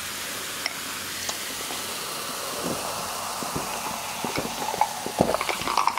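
Cola fizzing in a glass mug close to the microphones, a steady hiss of carbonation. About halfway through come the swallowing sounds of drinking it, the gulps coming quicker toward the end.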